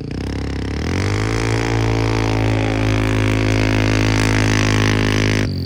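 Vehicle engine fitted with a cheap exhaust turbo whistle, revving up over about a second and then held at steady high revs with a hiss over it, dropping off sharply near the end.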